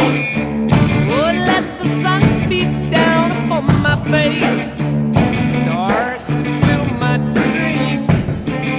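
Rock music with a steady drum beat, held bass and guitar notes, and a voice or lead guitar line sliding in pitch.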